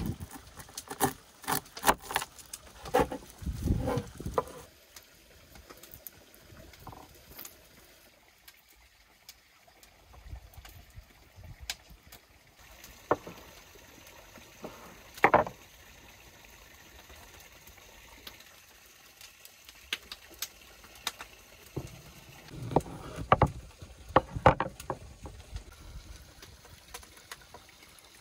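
Knocks and clicks of hands-on food preparation at a wooden table, with utensils and bowls being handled. They come in a busy spell near the start and another near the end, with a few single knocks between, one of them louder, around the middle.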